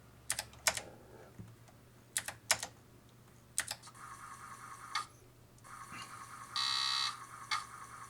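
Keys of a mechanical keyboard fitted into a Commodore 64C clicking as they are typed on, a handful of presses in quick pairs and groups. About halfway through, a steady electronic buzzing tone sets in; it breaks off briefly and swells loudly for half a second near the end.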